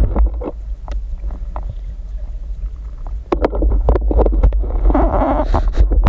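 Water sloshing and gurgling around a camera during spearfishing, with a constant heavy low rumble, scattered sharp clicks and knocks, and a louder rush of water about five seconds in.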